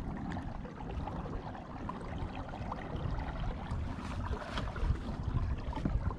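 Water moving along the hull of a sit-on-top pedal kayak under way, with a low, uneven wind rumble on the microphone and a few small splashes.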